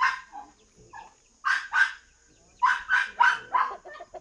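A dog barking repeatedly, in quick runs of sharp barks, several a second.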